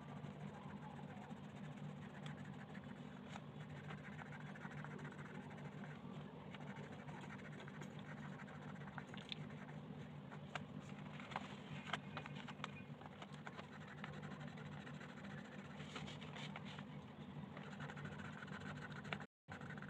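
Colored pencil scratching across paper in repeated strokes as a page is colored in, with a few light ticks of the pencil tip. A steady low hum runs underneath.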